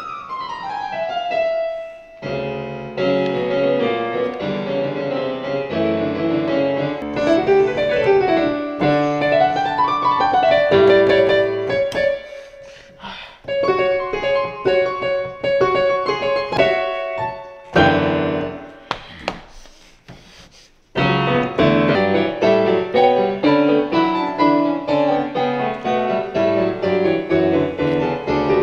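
Piano music with quick runs of notes; it thins out briefly twice, near the middle and about two-thirds of the way through.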